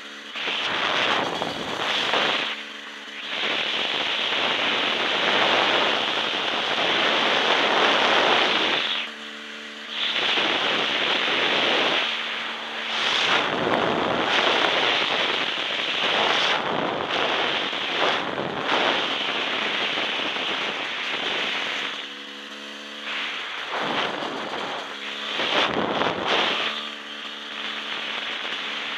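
Husqvarna WR300 two-stroke enduro engine revving hard under acceleration, mixed with wind rushing over the microphone. Several times it drops back to a lower, steadier engine note as the throttle is eased, then picks up again.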